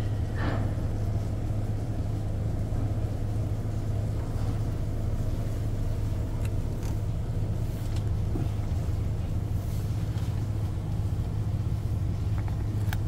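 Steady low drone of the ship's engine machinery. A few faint clicks in the middle and near the end come from the dog mouthing a chew treat.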